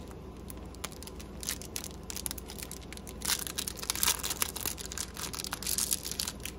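Small clear plastic bag crinkling and rustling in the fingers as it is worked open, in irregular crackles that are loudest a little past the middle and again near the end.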